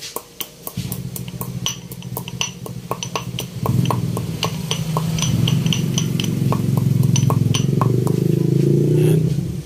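Stone pestle pounding black peppercorns in a granite mortar, sharp clinking strikes about three a second. A low steady rumble comes in about a second in and gets louder near the middle.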